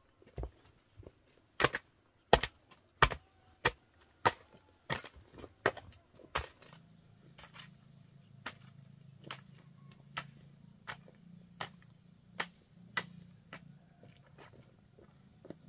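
A tool striking wood again and again, about one and a half blows a second. The blows are hardest through the first six seconds, then go on lighter at much the same pace, with a low hum coming in about halfway.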